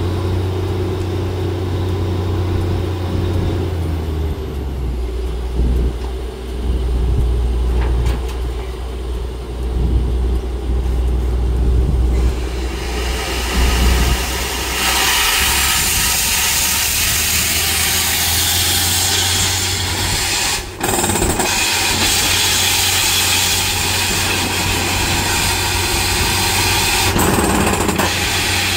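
Borewell drilling rig running with a deep, steady engine drone; about twelve seconds in a loud rushing hiss of blown air joins it and holds.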